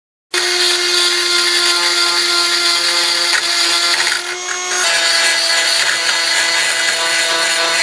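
Cordless power tool motor running at speed with a steady whine, easing briefly about four seconds in and then picking up again at a slightly different pitch.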